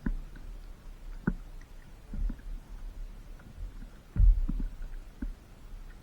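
Low rumble of wind and water on the microphone of a camera out on a stand-up paddleboard, with irregular dull thumps and knocks. The loudest thump comes about four seconds in.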